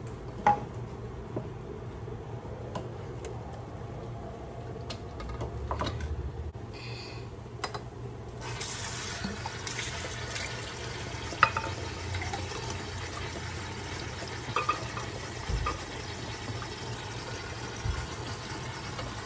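Kitchen faucet turned on about eight seconds in, water running steadily into the sink. Scattered knocks and clinks of a glass blender jar and a glass being handled come before and during the running water.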